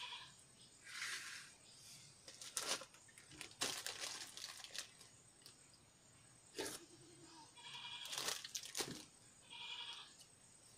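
A goat bleating several times in short calls: at the start, about eight seconds in and near the end. Between the calls come sharp crackling and rustling sounds.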